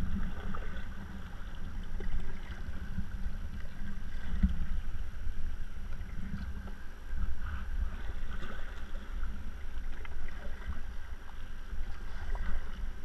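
Water lapping against the hull of an Old Town Ambush kayak as it sits on calm sea, with an uneven low rumble of wind on the microphone.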